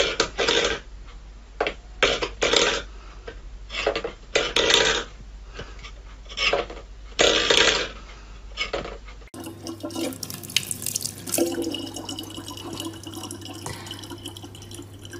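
A stainless-steel pet bowl clattering and knocking on a wooden floor, about eight to ten separate knocks as a cat paws at it. About nine seconds in this gives way to a thin stream from a tap running into a plastic bottle.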